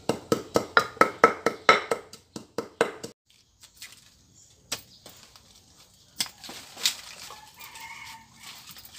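Wooden pestle pounding in a clay mortar, about four ringing strikes a second, stopping suddenly about three seconds in. Then quieter rustling and a few sharp snaps from digging among plants in the soil.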